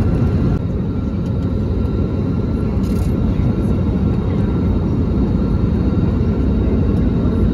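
Steady low rumble of a jet airliner's engines heard from inside the cabin, with a faint steady whine above it.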